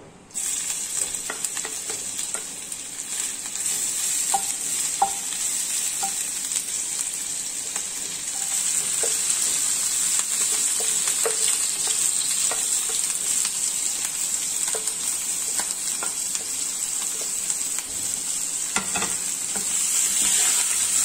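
Chopped onion, grated ginger, green chillies and curry leaves hitting hot oil in a nonstick frying pan and sizzling. The sizzle starts suddenly about a third of a second in and grows a little louder near the end, with scattered light knocks and scrapes as the mixture is stirred.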